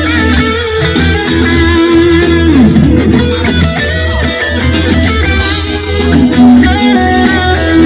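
Electric guitar played lead through effects pedals: held, sustained melody notes, one sliding down in pitch about two and a half seconds in, over a steady low bass backing.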